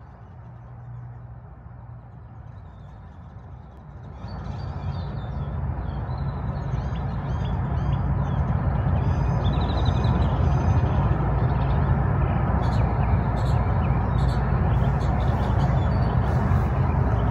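Steady low rumble of vehicle noise that grows louder from about four seconds in and then holds. Small birds chirp over it.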